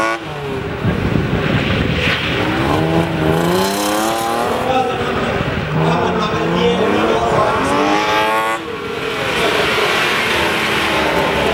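BMW E30 race car's engine revving hard, its pitch climbing in repeated sweeps and dropping off sharply about three quarters of the way through, with tyre squeal as the car slides sideways.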